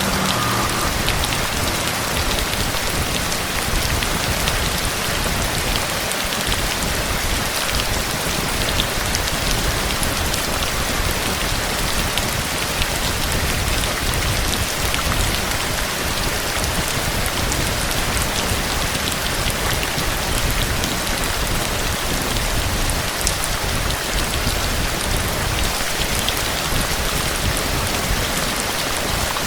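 Heavy rain falling steadily: an even hiss with scattered sharp drop ticks.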